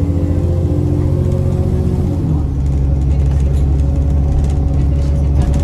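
Diesel engine of a double-decker bus running under way, heard from on board. Its pitch drops about two seconds in, as at a gear change, then runs steady.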